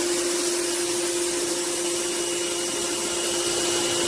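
Electric pressure washer running and spraying: a steady motor-pump whine over the constant hiss of the water jet.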